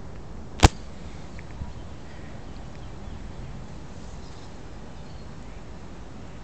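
A single sharp click about half a second in, followed by a few faint ticks over a steady low background rumble.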